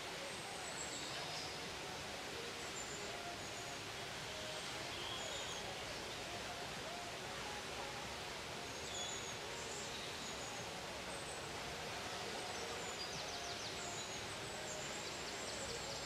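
Waterfall rushing steadily, with short high bird chirps over it now and then and a quick chattering trill near the end.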